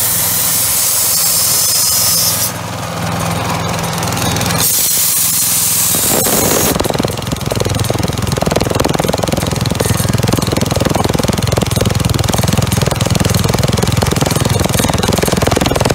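Petrol engine running an Anest Iwata SUE-152PB single-cylinder air compressor. Air hisses out loudly in two spells over the first six seconds; from about seven seconds the hiss stops and the engine and pump settle into a harder, rapid chugging as they pump up the tank pressure.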